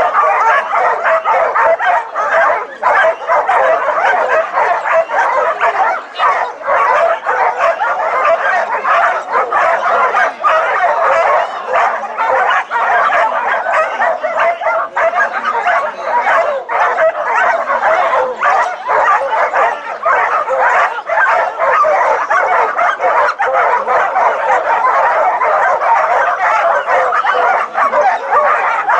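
A large pack of canicross dogs barking, yelping and whining together without a break: the excited din of dogs held back at a race start line.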